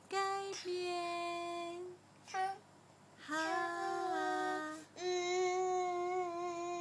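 A toddler girl singing, in several phrases of long, steady held notes with short breaks between them.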